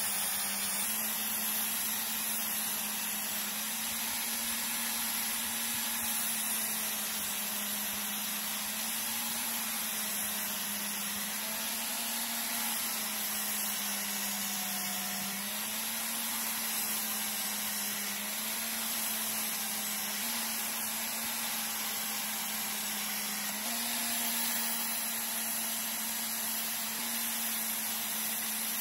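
An electric power tool running steadily with a strong hiss. Its motor hum shifts slightly in pitch a few times.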